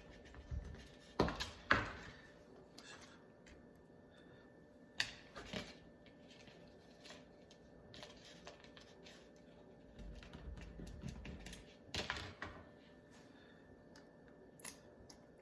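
Scattered small clicks and taps, irregular and a few seconds apart, from fish oil softgel capsules being cut open by hand and emptied into a bowl of dog food.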